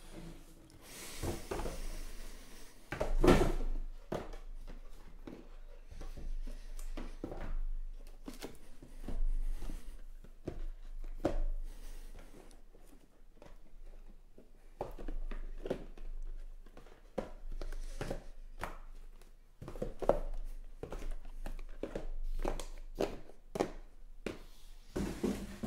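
Cardboard trading-card hobby boxes being picked up, slid and set down on a table one after another: a string of light knocks and handling noises, the loudest about three seconds in.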